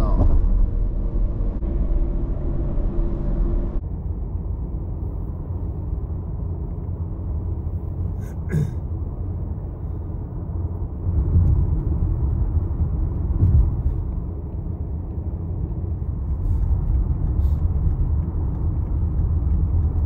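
Road and engine noise of a car driving at highway speed, heard inside the cabin: a steady low rumble, with a few light clicks near the middle.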